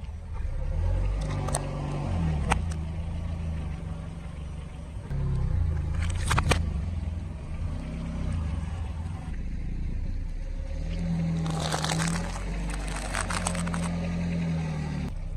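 Car engine running at low speed while a tyre rolls over objects, with sharp cracks and crunches as they are crushed: a few single snaps early, a short cluster about six seconds in, and a denser crackling run around twelve to thirteen seconds in.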